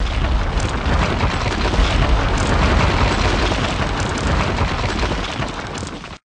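Wall-breaking intro sound effect: a dense, rumbling crash with heavy bass that eases slightly and cuts off abruptly about six seconds in.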